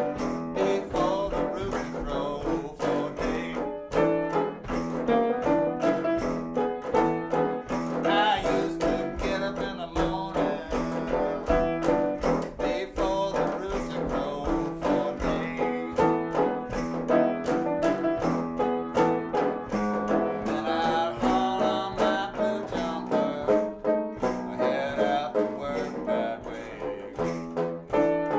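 Banjo and piano playing a blues-style song together: the banjo's quick plucked rhythm over piano chords.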